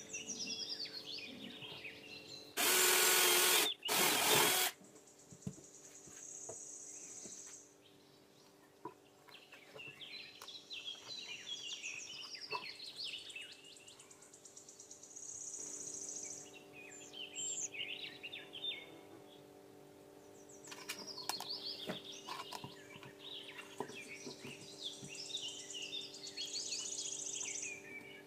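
Small birds chirping and singing in the background, over a steady low hum. About three seconds in come two loud bursts of noise, each lasting about a second.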